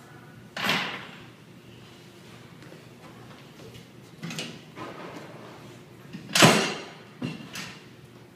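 Knocks and scrapes from handling a metal Cisco 7000 series switch chassis: a sharp knock near the start, a few lighter clunks, and the loudest knock about six seconds in.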